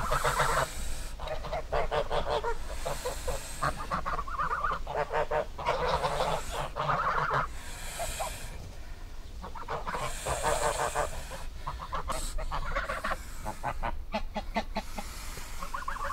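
Geese honking over and over, the calls coming in short runs with brief pauses between them.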